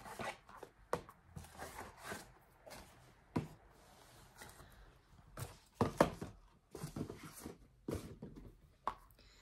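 Irregular light taps, clicks and rustles of cardboard and product packaging being handled, as two products are taken out of an advent calendar compartment.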